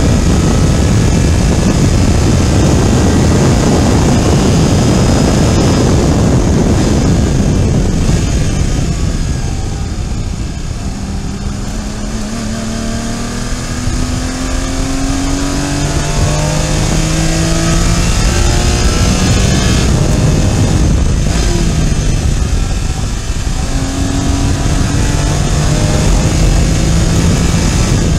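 Porsche Cayman GT4 Clubsport's 3.8-litre flat-six heard from inside the cabin, running hard at high revs, with heavy road and wind noise. About eight seconds in it lifts off for braking and the note drops. From about thirteen seconds the engine note climbs steadily as the car accelerates again, eases briefly near twenty seconds, then climbs once more.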